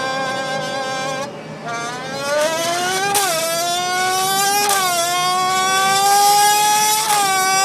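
Imitation of a Formula 1 engine made with a Red Bull can: a buzzing tone held for about a second, then rising in pitch in long sweeps that drop back sharply three times, like a race car revving up through its gears.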